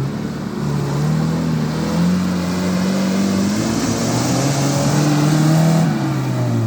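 Off-road 4x4's engine revving hard as it attempts a steep muddy climb, its wheels spinning and digging into the mud, with a constant hiss of mud and spray. The revs climb in the first second, hold high, then fall away about six seconds in.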